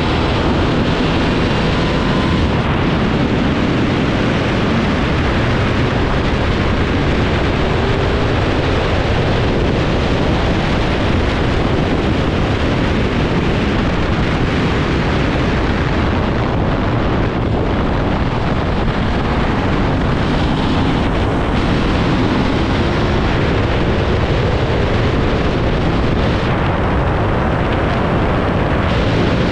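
Aprilia RS660's parallel-twin engine running at speed through corners, largely buried under a steady rush of wind on the microphone.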